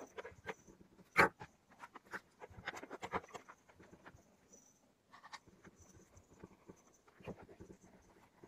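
Faint scratching of a ballpoint pen writing on paper, mixed with light taps and knocks on a wooden desk as a kitten walks about on it; one louder knock about a second in.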